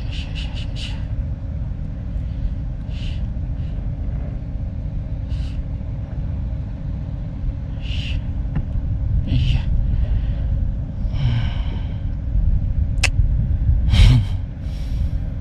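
Steady low rumble, most likely wind buffeting the microphone, with short high ticks every few seconds and a sharper knock near the end.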